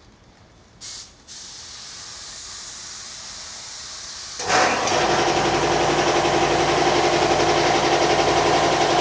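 Electric paint-spraying equipment: a short hiss about a second in, then a faint steady rush of air. About four and a half seconds in, a motor switches on and runs steadily with a loud hiss of air and a steady hum.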